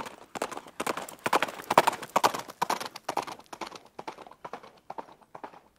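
A rapid run of sharp knocks, loudest about two seconds in and thinning out near the end.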